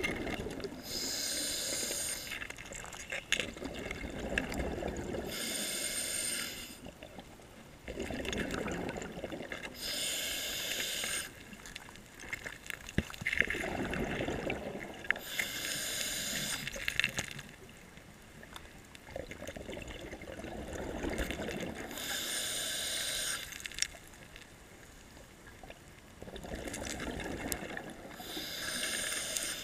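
Scuba diver breathing through a regulator: a hissing inhale, then a longer bubbling exhale, repeating about every five seconds, six breaths in all.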